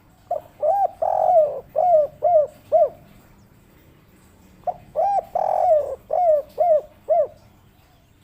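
Spotted dove (tekukur) cooing twice. Each phrase is a short note, a long drawn coo, then three short notes at the end, the 'kuk 3' call.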